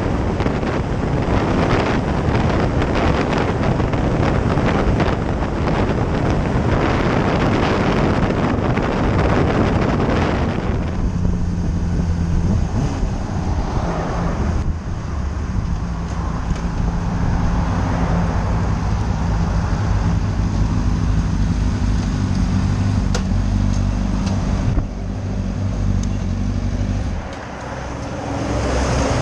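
Wind rushing over the microphone of a sport motorcycle at road speed, then, as the bike slows after about ten seconds, its engine running at low revs with the pitch shifting as the throttle changes. Near the end the engine note drops off as the bike pulls up.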